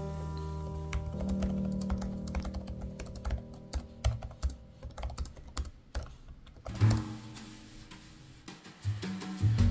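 Typing on the Razer Blade 14 laptop's built-in keyboard: a quick run of key clicks and taps that thins out near the end, over soft background music.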